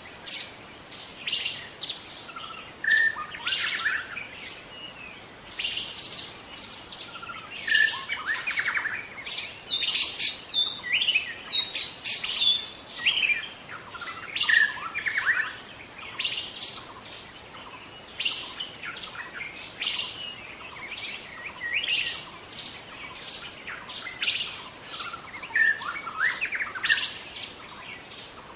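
A wild white-rumped shama singing, a continuous run of loud, varied whistled phrases, quick chirps and trills following one another with only short pauses.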